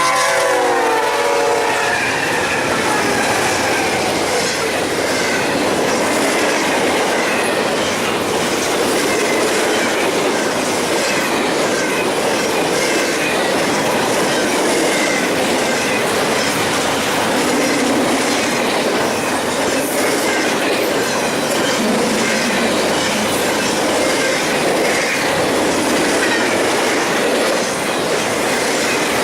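A train's horn ends about a second in, dropping in pitch as the locomotive passes. The train's cars then roll steadily past with a rhythmic clickety-clack of wheels over rail joints and some wheel squeal.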